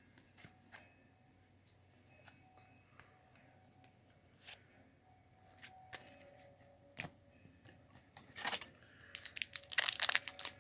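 A trading-card pack wrapper being handled, with scattered small clicks, then crinkling and tearing loudly from about eight seconds in as the pack is pulled open.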